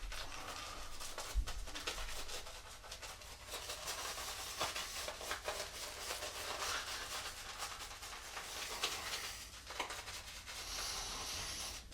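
Irregular scratchy rubbing strokes on the face during a wet shave, the sound of lather and skin being worked between passes.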